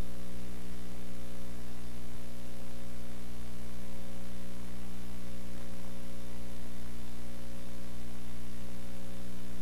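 Loud, steady electrical mains hum: a buzz of many evenly spaced low tones over a light hiss, unchanging throughout.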